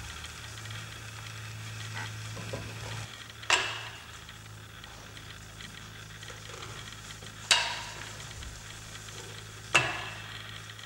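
Workshop handling noise: three sharp metallic knocks, a few seconds apart, each with a brief ring. A low steady hum sits under the first few seconds.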